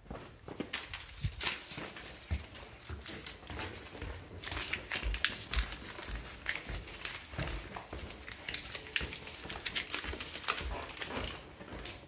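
Footsteps climbing a staircase: irregular dull thuds of footfalls, with sharp clicks and rustling from handling and carried gear.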